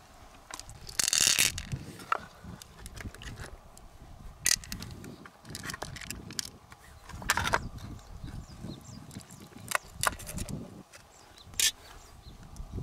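Freshwater pearl mussels being handled open: irregular clicks and scrapes of shell against shell and concrete, with a longer, louder scrape about a second in. Under them is soft wet handling as fingers squeeze pearls from the mussel flesh.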